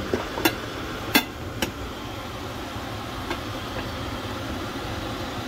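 Sharp clinks and knocks of hard kitchenware as the opened electric pressure cooker and its lid are handled: about five in the first two seconds and a fainter one later, over a steady background hum.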